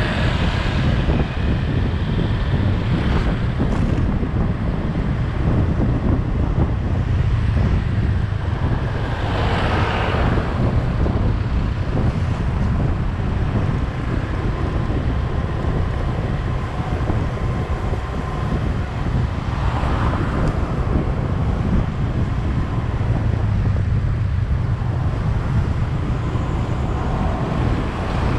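Steady road and engine rumble from a vehicle driving along a town road, with wind on the microphone. Other vehicles pass now and then: one near the start, one about a third of the way in and one about two-thirds of the way through.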